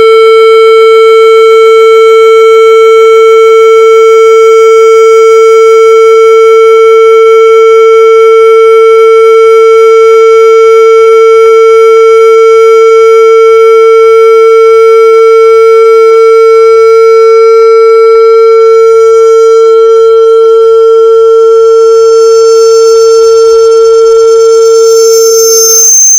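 Loudspeaker feedback screech: one loud, steady howling tone, held at a single pitch with a buzzy edge of overtones, that falters and breaks up near the end.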